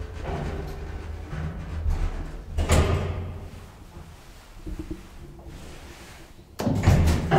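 Old DEVE hydraulic freight elevator with a steady low hum, a loud metallic clonk about three seconds in, and another loud clunking clatter near the end.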